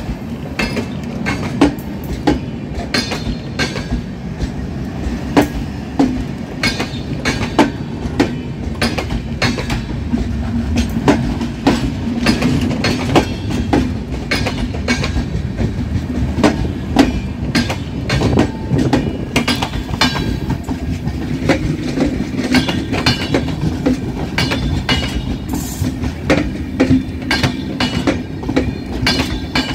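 Mandovi Express's LHB passenger coaches rolling past as the train pulls out, steel wheels clacking irregularly over the track, several sharp clacks a second, over a steady low rumble.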